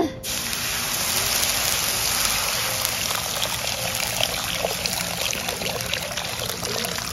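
Water pouring in a steady stream into a hot black iron kadai, splashing and hissing against the heated metal. It starts suddenly just after the start and keeps on evenly.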